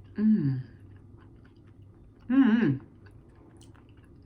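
Someone chewing pizza with small wet clicks of the mouth, broken twice by a short hummed vocal sound falling in pitch, like a thinking "hmm".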